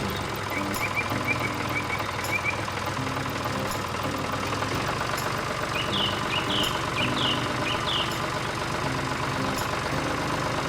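Tractor engine running steadily, with small birds chirping over it: a run of quick chirps in the first few seconds and louder chirps in the middle.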